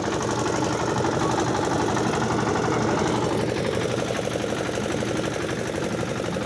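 Motor vehicle engine idling steadily with a fast, even pulse, most likely the parked pickup truck that carries the road-marking gear.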